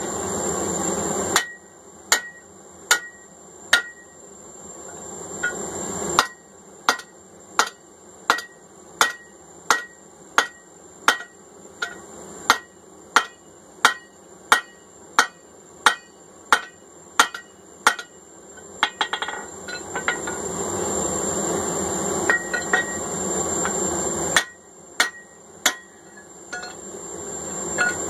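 Hand hammer striking hot steel on an anvil while forging a hammer eye punch, each blow a sharp ringing clang: a few blows at first, then a steady run of a little under two blows a second, a pause, and more blows near the end. A steady rushing noise from the forge fills the gaps near the start and during the pause.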